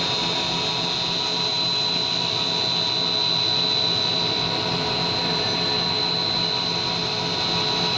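Extruded-snack production machinery running steadily: a constant mechanical noise with a high-pitched whine over it.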